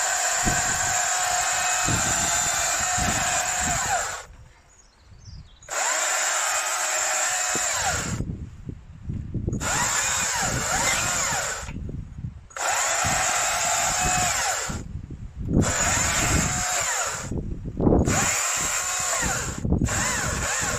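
Stihl MSA 200 C battery chainsaw running and cutting through branches, its electric motor whining steadily. The whine stops and starts again about six times as the trigger is released and squeezed between cuts.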